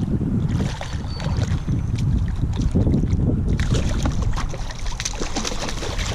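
A small bluefish thrashing and splashing at the surface beside a kayak as it is reeled in, over a heavy rumble of wind on the microphone. The splashing gets much busier a little past halfway.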